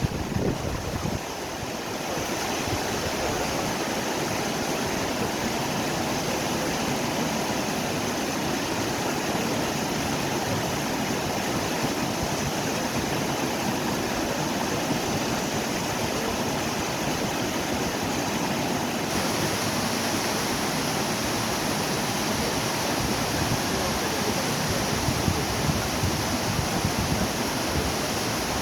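Waterfall: water falling and rushing in a steady, dense wash of noise.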